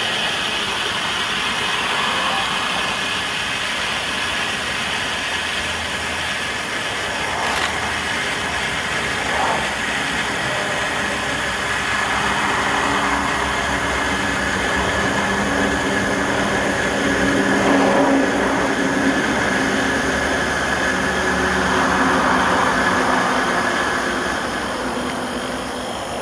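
Green mini Bengal flare burning with a steady hiss, over a faint low rumble like distant traffic.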